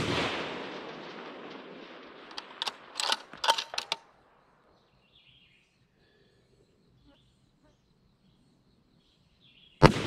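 A prone precision rifle's shot echoing away over the range, then a quick run of sharp metallic clicks as the bolt is worked to eject the case and chamber the next handload, and a second rifle shot near the end whose echo rolls on.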